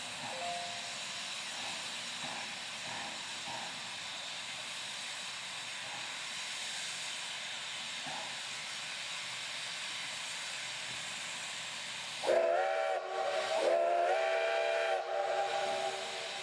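A Durango & Silverton K-36 narrow-gauge steam locomotive hisses steadily with escaping steam. About twelve seconds in, its steam whistle sounds a loud chord in two blasts, a short one and then a longer one.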